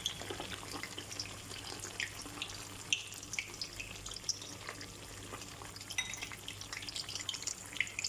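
Potatoes frying in hot oil: a steady crackling sizzle with many small pops.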